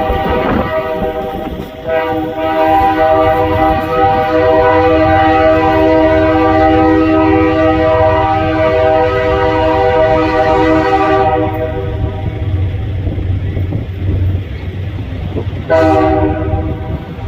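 Locomotive air horn sounding a brief blast, then a long blast that fades out about eleven seconds in, and one short blast near the end, over the low rumble of the train.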